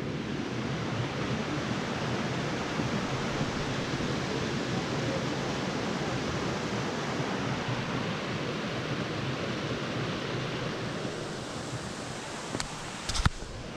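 Steady rush of moving water, with a few sharp clicks near the end.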